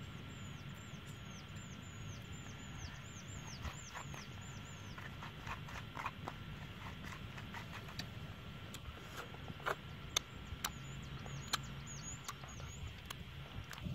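Fingers squishing and mixing crushed chili in a coconut-shell bowl: a run of soft wet clicks, with a few sharper ones past the middle. A bird chirps fast runs of high notes at the start and again near the end.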